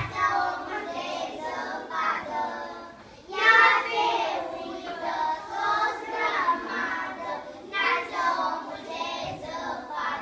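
A group of young children singing together in unison, in phrases with short breaks between them.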